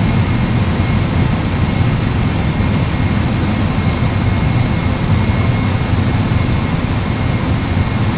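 Steady low rumble of an Airbus A320 full flight simulator's engine and airflow sound in the cockpit during the climb after takeoff, with the engines at climb thrust and a faint high whine over it.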